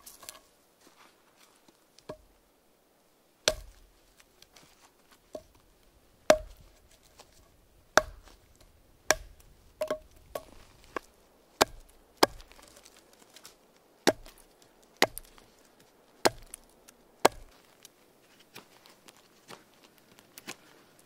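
Varusteleka Skrama bush knife chopping into a log: sharp wooden chops at an uneven pace of roughly one a second, a few in quick pairs. Near the end only fainter, lighter taps.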